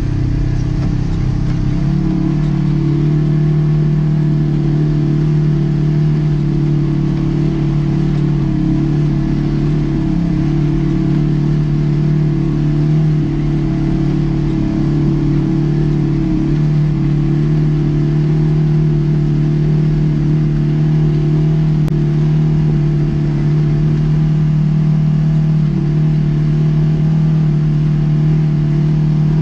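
Side-by-side UTV's engine running at a steady pitch while it drives a rough dirt trail, heard from inside the open cab.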